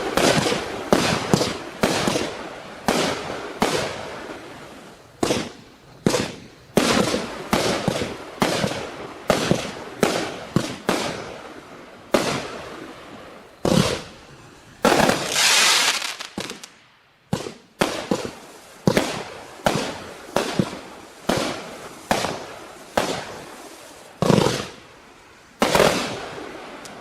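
A 132-shot firework cake firing: a rapid string of sharp reports, about two a second, each with a crackling tail. About fifteen seconds in comes a longer, louder crackling burst, with a brief lull just after it.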